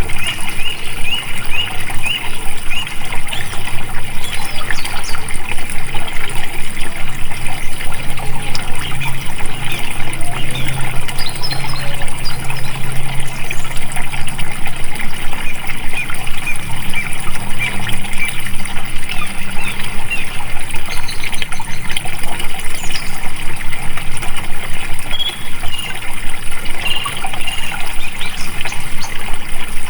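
Water flowing and splashing steadily, with many small splashes and trickles.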